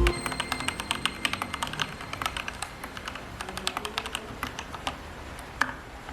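Typing on an Anne Pro 2 mechanical keyboard fitted with Tai-Hao Sakura Michi keycaps: a quick, uneven run of keystroke clacks, several a second, with one louder stroke near the end.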